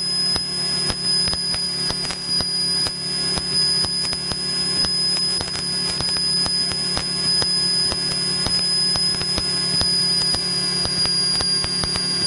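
Piper Cherokee light plane's piston engine droning steadily in the cockpit during a descent, with a constant high-pitched whine above the hum and frequent faint clicks.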